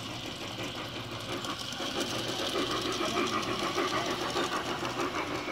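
G-scale model train, a steam-outline locomotive pulling coaches, rolling along garden track with a rapid mechanical rattle of its gearing and wheels that grows louder from about two seconds in as it passes close by.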